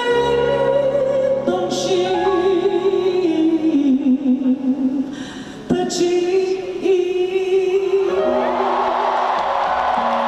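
Live concert singing with band accompaniment: a voice holding long notes with vibrato, pausing briefly about halfway, then resuming. Audience noise swells near the end.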